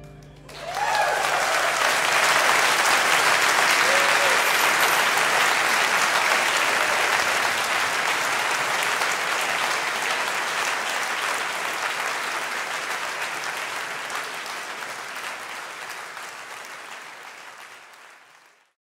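Concert audience applauding at the end of a piece, starting under a second in, holding steady, then fading out gradually over the last several seconds.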